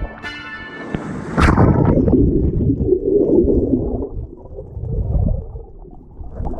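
Muffled underwater churning and gurgling of shallow surf water around a submerged camera. There is a sharp splash about a second and a half in as a wave and bubbles wash over it.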